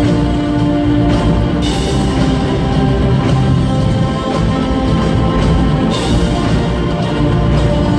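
Live orchestra and rock band with electric guitars and drums playing a loud, dense passage of film-score music, recorded from the audience. The sound brightens sharply about two seconds in and again about six seconds in.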